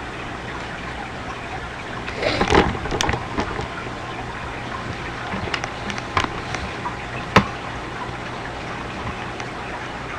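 Steady hiss and low electrical hum from a desktop recording microphone, with a short rustle about two and a half seconds in and a few sharp computer mouse clicks scattered through, the loudest near the middle.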